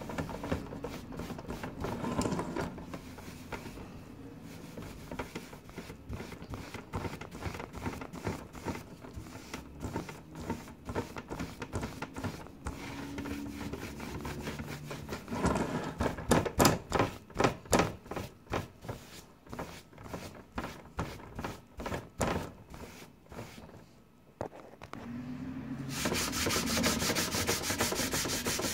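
Soft-bristled brush sweeping back and forth over a freshly grouted glass mosaic, cleaning excess grout off the glass. The strokes turn quicker and louder about halfway through, about three a second. Near the end a small pad rubs the glass in a steady, fast scrubbing.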